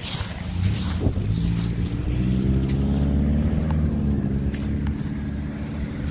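A car driving past, loudest about midway through, its engine note falling in pitch as it goes by.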